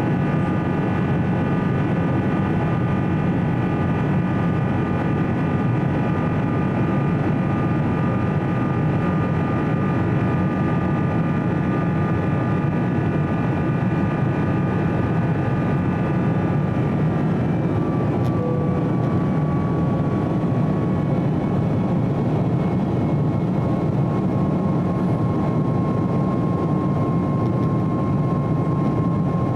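Boeing 777-300ER's GE90 turbofan engines heard inside the cabin during the climb after takeoff: a steady roar with several high whining tones. A little past halfway the whine weakens and drops slightly in pitch.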